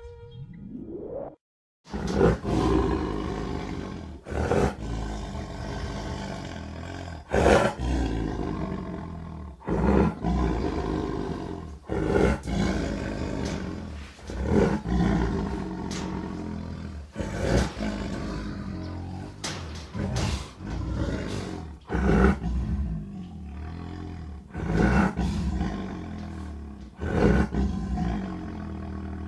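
Siberian tiger roaring again and again, about eleven deep roars each starting suddenly and trailing off, spaced roughly two and a half seconds apart.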